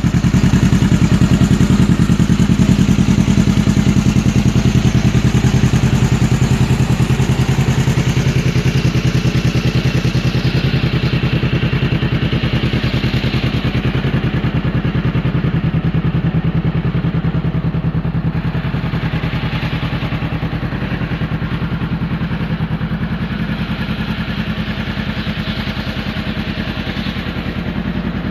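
Vehicle exhaust with a soft note, the engine idling steadily with an even low pulse.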